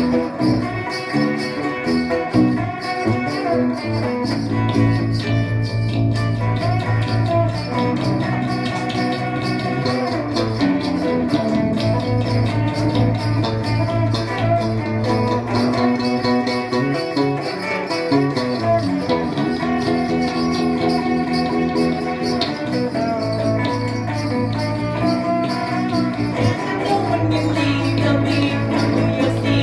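A live band playing: hollow-body electric guitar and electric bass, with long held low bass notes under the guitar.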